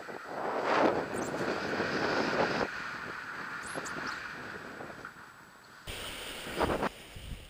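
Wind rushing over the microphone during a paraglider launch run and the first seconds of flight. It is loudest early on, then eases off, and the sound changes abruptly about six seconds in.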